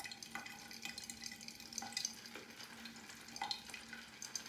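Wet synthetic shaving brush being worked over shaving soap to load it for a lather: soft, scratchy, wet strokes with a few drips.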